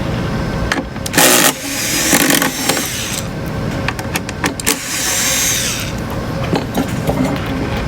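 Screws being backed out of an oscilloscope's main board with a powered screwdriver: short spells of motor whir about a second in, around two seconds and around five seconds, with small clicks of screws and parts over a steady low hum.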